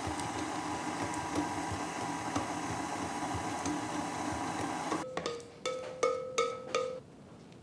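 KitchenAid stand mixer running steadily as it whips butter and honey into honey butter, then cutting off suddenly about five seconds in. A few short musical notes follow.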